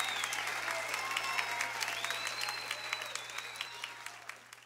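Concert audience applauding and cheering, with a high whistle gliding above the clapping. The applause fades out toward the end.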